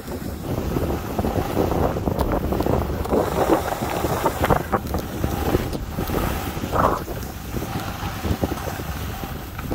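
Wind rushing over the phone's microphone during a ski descent, with the skis scraping and hissing on groomed snow in irregular strokes.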